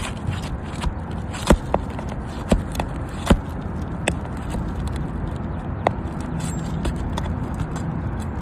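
Scattered sharp knocks and clicks from a roofing tool working nails out of asphalt shingles, about six in all, two of them louder, over a steady low rumble.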